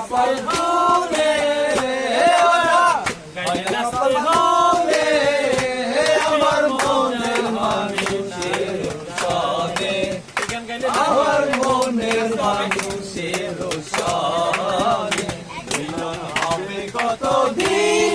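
A group of men singing together, loud and unaccompanied by any instrument besides sharp beats that run through the song.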